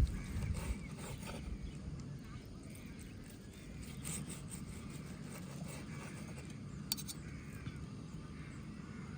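Faint animal calls over a steady low outdoor rumble, with one sharp click about seven seconds in.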